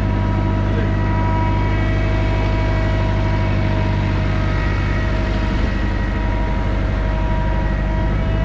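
Truck-mounted crane's engine running steadily at constant speed while the crane lifts a truck frame: a deep, even hum with several steady higher tones over it.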